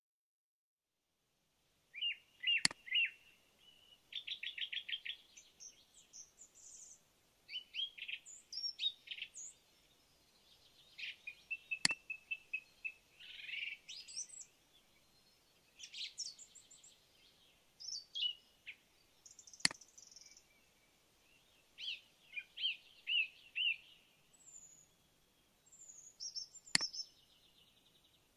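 Birds chirping and singing in short, rapid calls and trills, with four sharp clicks spaced several seconds apart.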